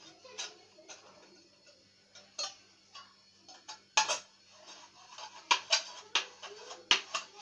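A knife tip scraping and clicking against a tin can's metal lid as the slot in it is widened. The clicks come irregularly, with a sharp one about four seconds in, then closer together and louder near the end.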